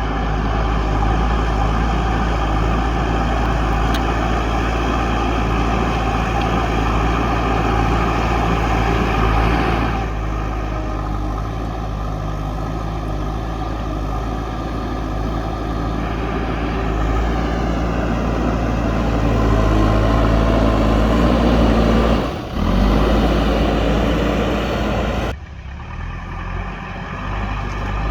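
JCB backhoe loader's diesel engine running hard under load, a steady low throb that rises in pitch as it revs up for several seconds, with a few sudden changes in the engine note.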